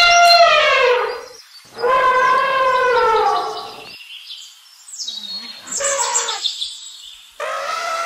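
Elephant trumpeting: a run of loud, horn-like calls with pauses between them. The first call falls in pitch as it ends, a second follows about two seconds in, a rougher, higher one comes around five to six seconds, and another starts near the end.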